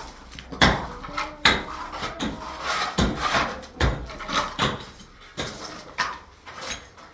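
A series of sharp, irregular knocks and clatters, roughly two a second.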